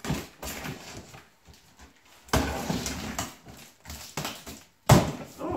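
A large cardboard box being torn open by hand: flaps pulled up with scraping and rustling of cardboard, and one sharp knock about five seconds in.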